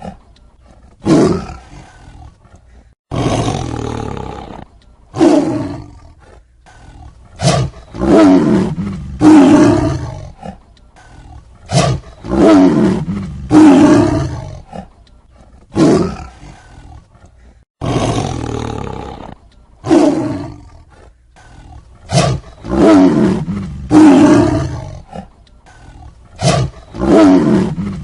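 Tiger roaring over and over: about twenty short roars, some in quick pairs, roughly one every second or so, with brief quiet gaps between them.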